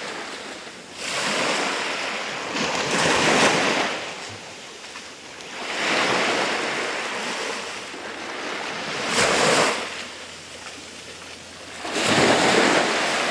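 Small waves washing up on a sandy beach in four swelling surges about three seconds apart, each rising and then draining back.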